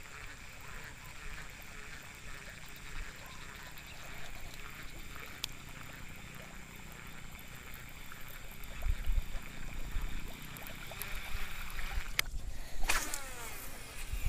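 Bullzen baitcasting reel being wound in with a fine, rapid ticking from its gears, retrieving the line just after a strike. From about halfway, low rumbling thumps hit the microphone, and a quick falling whoosh comes near the end.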